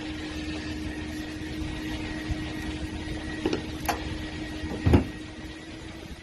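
A steady hum with a held tone, broken by two light clicks about three and a half seconds in and a louder knock about five seconds in, like parts being handled on a workbench.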